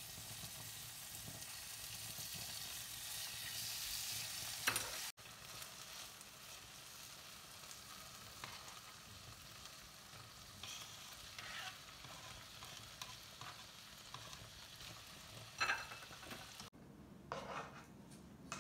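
Food sizzling in a frying pan, with a utensil stirring and knocking against it. There is a sharp clink about five seconds in, then scattered clinks and knocks.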